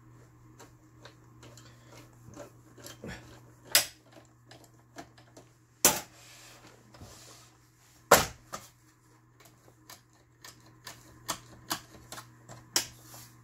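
Irregular clicks and knocks of hands working on a partly assembled household sewing machine's metal frame and small parts, with three sharper knocks about 4, 6 and 8 seconds in.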